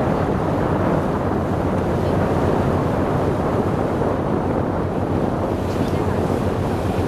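Wind buffeting the microphone on the Gozo–Malta ferry, over a steady rush of sea water and the boat's running.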